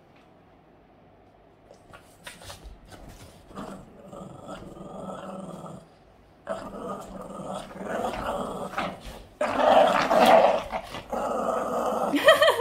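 A Boston terrier growling in play while tugging on a toy. The growling starts a couple of seconds in, comes in uneven stretches and grows louder, and is loudest about two-thirds of the way through.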